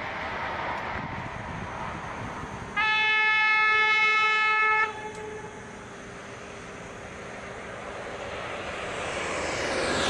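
Rushing noise of a high-speed train, with a loud horn blast held at one steady pitch for about two seconds a few seconds in, then the rushing noise building again as a train approaches near the end.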